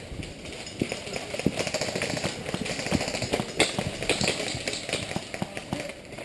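Footsteps moving quickly through woodland undergrowth: an irregular run of crunches, snaps and knocks over a rustling hiss.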